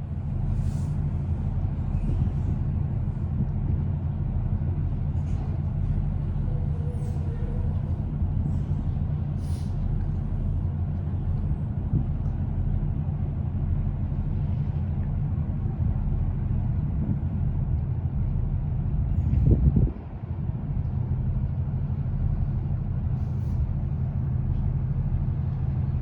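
Steady low drone of ship's engines and machinery running while the vessel holds position and slowly turns. It swells briefly about twenty seconds in, then settles back to the same hum.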